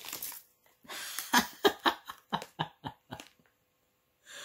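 A man laughing in a run of short, choppy bursts that stop about three and a half seconds in.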